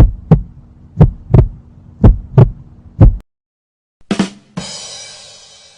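Heartbeat sound effect: four deep double 'lub-dub' thumps, about one a second, stopping a little past three seconds in. Near the end come two quick drum hits and a cymbal crash that rings away, a ba-dum-tss rimshot sting.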